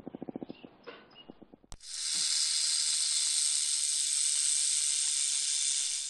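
Rattlesnake rattling its tail: a loud, steady, dry buzz that starts about two seconds in and holds for about four seconds. Before it come a few faint low pulses, the tail end of a growl.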